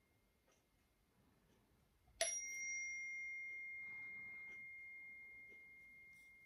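A small metal chime is struck once about two seconds in and rings on as one clear high tone that fades slowly. It is struck to clear the energy before a reading.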